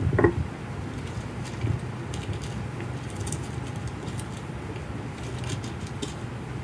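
Faint rustle and crackle of Bible pages being turned, in short scattered bursts over a steady low hum of background noise.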